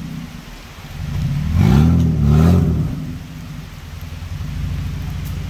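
Toyota Land Cruiser's 4.5-litre EFI engine under load as the 4x4 crawls over rocks, revving up twice about two seconds in, then settling back to a steady low run.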